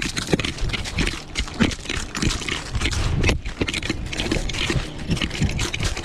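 A Weimaraner's paws crunching and scuffing on loose crushed-stone gravel, heard from a camera on its collar, in a quick irregular run of crunches.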